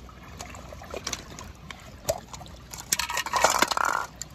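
Water trickling and splashing as a toy car is handled in water, with scattered light clicks and knocks of plastic, and a louder, busier stretch of splashing near the end.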